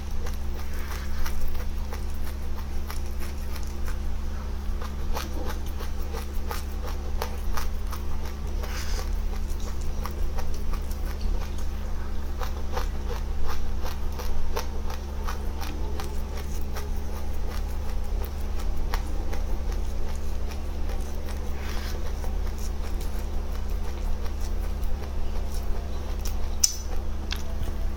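Close-up chewing and crunching of dry seeds: many small crisp clicks in quick succession, over a steady low hum.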